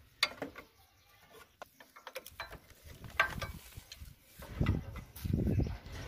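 Scattered metal clicks and clinks of pliers working the nuts on a chaff cutter's feed-roller gearing, checking them for looseness. Two louder low sounds come near the end.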